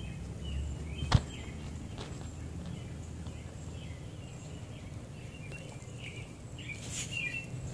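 English bulldog licking and biting at a hand-held apple, with wet mouth sounds and a sharp click about a second in, and a few more clicks near the end. A steady low hum and faint high chirping run underneath.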